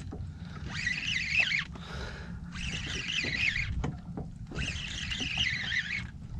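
Spinning fishing reel being cranked in three short spurts of about a second each, whirring and clicking, as the angler works a hooked fish in. A steady low rumble of water and wind lies underneath.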